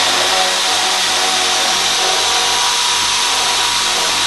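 Power drill running at a steady speed with a constant motor whine, boring a hole through an ABS pipe end cap.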